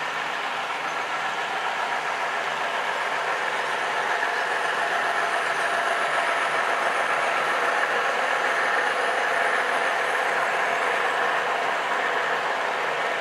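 Model freight train's coal cars rolling past on the layout track: a steady rolling noise of wheels on rail that grows a little louder toward the middle and eases off near the end.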